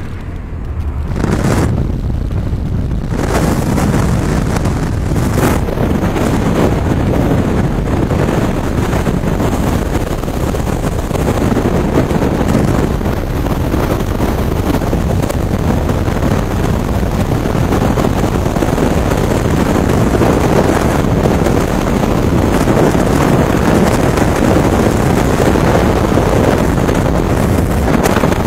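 Freefall wind rushing over a camera microphone in skydiving freefall: a loud, steady rush of noise with no pitch to it. It builds over the first few seconds after the aircraft exit, then holds.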